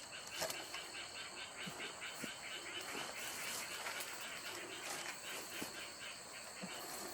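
Insects chirping: a steady high-pitched drone and a fast pulsed chirping of about seven chirps a second, which stops about halfway through. Faint scattered clicks and rustles sound alongside.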